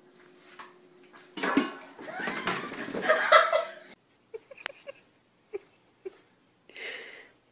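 People laughing and exclaiming loudly for about two and a half seconds as a cat is startled by a cucumber. The laughter cuts off suddenly near the four-second mark, leaving a few faint short taps and squeaks.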